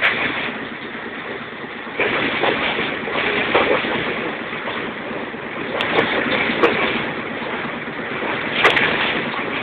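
Commuter train running: a steady rushing noise with a few sharp clicks, growing louder about two seconds in.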